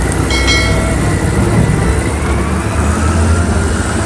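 Caterpillar 992C wheel loader's diesel engine running under load as it tips a marble block into a dump truck: a loud, steady, deep rumble, with a brief high squeal about half a second in.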